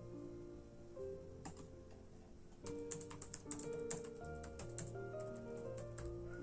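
Typing on a computer keyboard, a few key clicks about a second and a half in, then a quick run of keystrokes from about three seconds in, over soft instrumental music.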